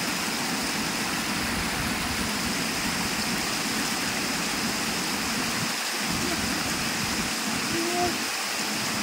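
Water rushing steadily down a sloping concrete spillway: a continuous, even splashing.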